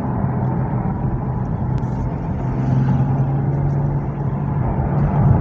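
2020 Toyota Supra's 3.0-litre turbocharged inline-six engine and exhaust heard from inside the cabin while driving, a steady drone over road noise that grows louder about halfway through.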